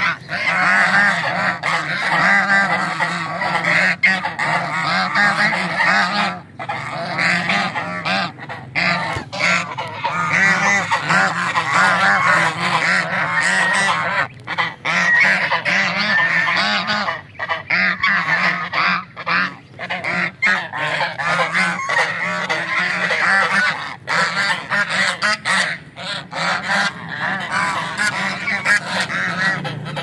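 A flock of domestic geese honking and cackling, many calls overlapping in a continuous chorus with a few short lulls.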